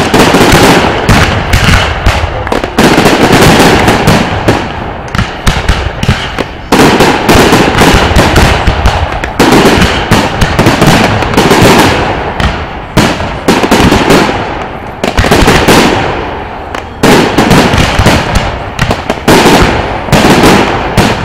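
Aerial firework shells bursting overhead in a dense barrage: loud, sharp bangs follow one another with hardly a pause, many overlapping.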